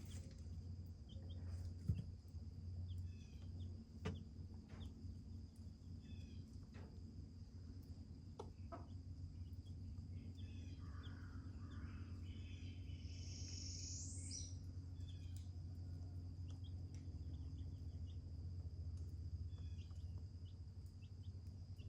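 Faint outdoor ambience: a steady high insect drone over a low hum, with scattered short chirps and a few soft clicks. A longer bird call comes about halfway through.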